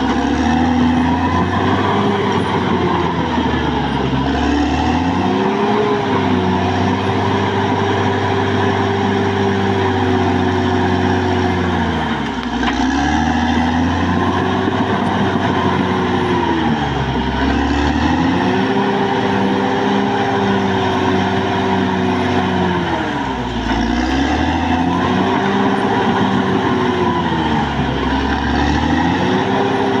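Caterpillar D6R XL bulldozer's diesel engine working under load, its speed dipping and recovering about every five seconds as the machine pushes and manoeuvres, with a faint high whine that rises and falls with it.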